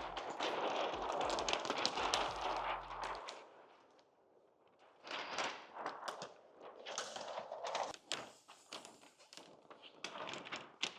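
Sheet of clear plastic protection film rustling and crackling as it is handled, in irregular bursts with a lull in the middle, over the tail of background music in the first few seconds.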